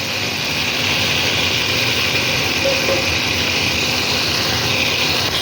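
Chicken pieces frying in a pan: a steady, even sizzle.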